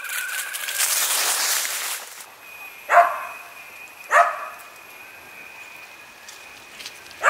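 A dog barks twice, about a second apart, a few seconds in, and starts barking again right at the end. Before the barks there is a second-long burst of rushing noise that cuts off suddenly.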